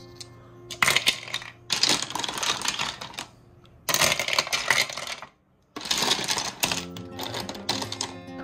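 Wet tumbled mookaite stones clattering and clinking against each other in four handfuls, as they are scooped from a plastic tray and dropped into a 3D-printed PLA tumbler bowl. There is a brief pause a little after five seconds in.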